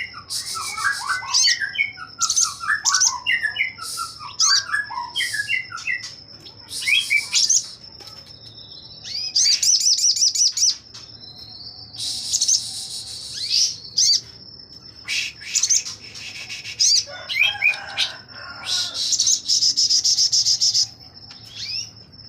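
Sogon (crested jay) singing its rapid-fire song, the fast 'shooting' type used as a tutor song for white-rumped shamas. It comes in dense bursts of a second or two with short pauses between them, and there are lower chattering notes in the first few seconds.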